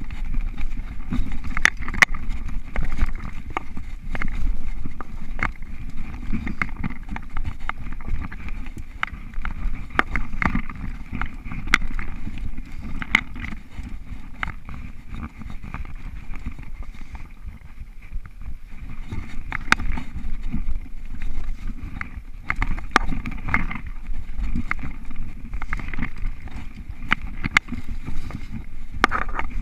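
Mountain bike rolling fast over a dirt singletrack: a steady rumble of tyres on the trail with frequent sharp clicks and knocks as the bike jolts over roots and bumps, easing off a little just past the middle.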